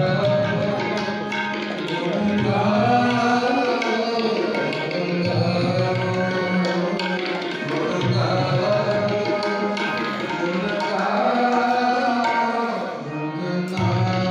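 Tabla and harmonium playing devotional kirtan music. The tabla's deep bass strokes run under the harmonium's sustained reedy chords.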